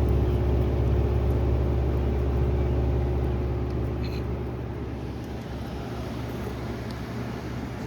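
Mid-1950s Fedders-built RCA Whirlpool window air conditioner running on vent, its fan motor giving a steady low hum that eases a little quieter about halfway through; the compressor is not yet running.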